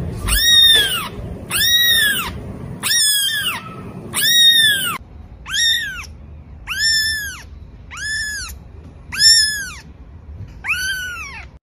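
Young kittens mewing over and over, about one high-pitched mew a second, each call rising and then falling in pitch.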